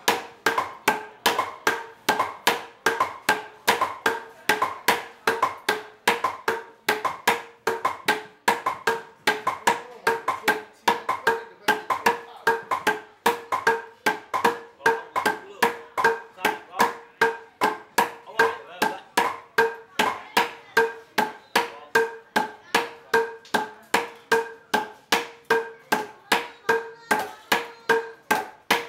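Gold-leaf beaters' heavy hammers striking packets of gold leaf on stone blocks: a steady rhythm of sharp strikes, about two or three a second, each with a short ringing tone.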